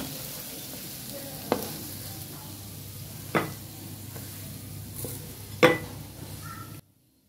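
A spatula scraping and knocking against a non-stick wok as cooked spiced potato filling is scooped out onto a plate, with three sharp knocks over a steady hiss. The sound cuts off suddenly near the end.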